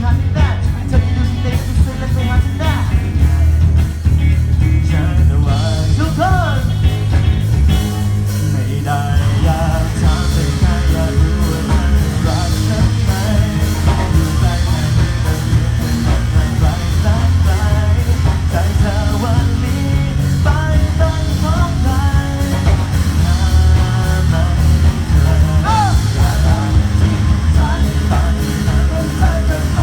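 A band playing a rock-style cover song: a singer's melody over guitar, a steady bass line and a regular beat.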